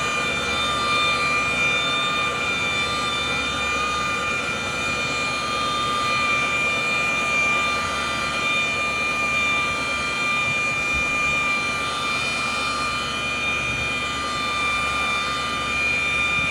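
Electric buffer fitted with a wool pad, running steadily with a high whine while cutting car paint with heavy cutting cream.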